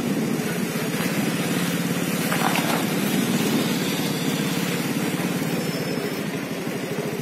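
A small engine running steadily with a fast, even pulse.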